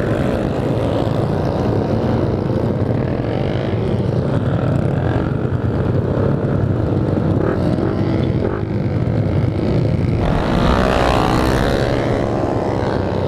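Many motorcycle engines running and revving together in a crowded pack. About ten seconds in, a nearby motorcycle revs hard for a couple of seconds, its pitch climbing and falling.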